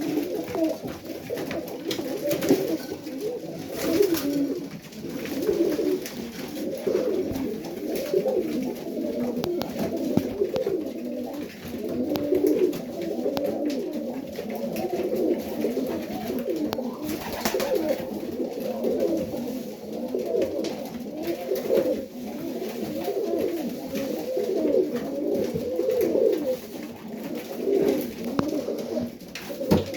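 Many Serbian highflyer pigeons cooing continuously, their low calls overlapping one another, with a couple of brief sharp noises among them.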